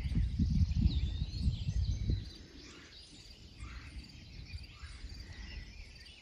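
Small birds chirping and calling in the background, with a low rumble on the microphone for about the first two seconds that then drops away.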